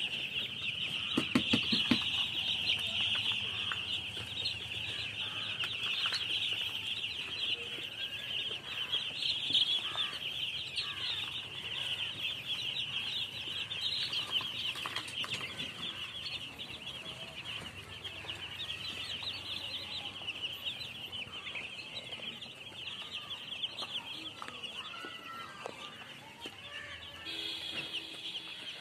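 A flock of baby chicks peeping all together, a dense, continuous chorus of many short high-pitched cheeps. A brief lower-pitched call stands out about a second in.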